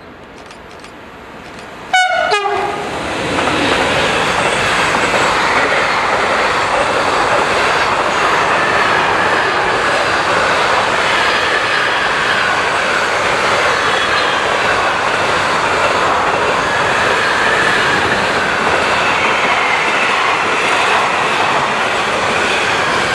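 A train sounds a short horn blast about two seconds in, then runs past close by, a loud steady rush of wheels on rails that continues until the sound cuts off suddenly.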